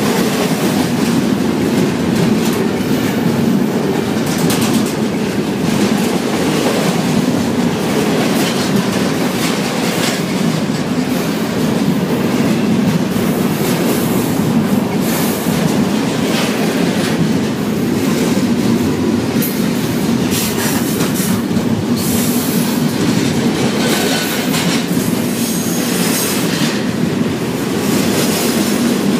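Double-stack container freight train rolling past at speed: a loud, steady rumble of steel wheels on the rails, with irregular clacks from the wheels and cars and now and then a brief squeal.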